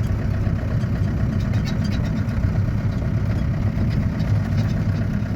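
Ford Transit 2.5 engine running steadily with an even low hum. Its front wheel bearing has just been replaced, and the earlier noise is gone.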